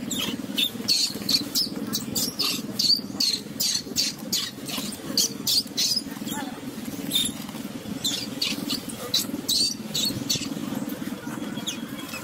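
Dry leaves crackling and rustling in short irregular bursts as a baby macaque scrabbles on the leaf-littered ground, over a steady low hum.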